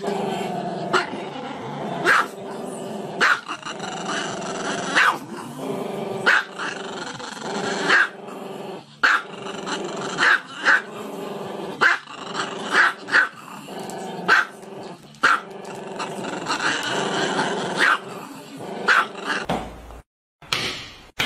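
A black-and-tan dog growling without pause, broken about once a second by short, sharp barks. The sound cuts off near the end.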